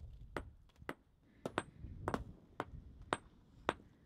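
Small hand hammers striking glacial fieldstones to split them into smaller, flat-sided paving stones. About eight sharp, uneven clinks, each with a brief high ring.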